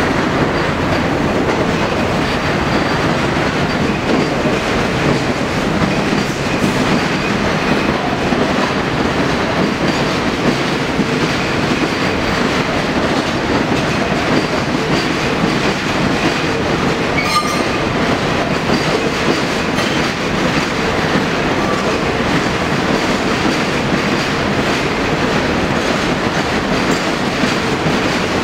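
Vintage New York City subway train rolling steadily past on the track beside the platform: continuous wheel-on-rail noise at an even level, with one sharp click about seventeen seconds in.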